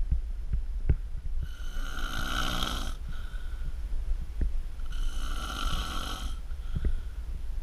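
A man snoring in his sleep: two long snores about three and a half seconds apart.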